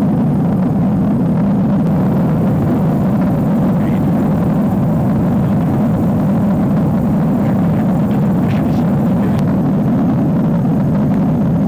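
Steady, loud rotor and turbine noise of a Puma helicopter in flight, heard from on board.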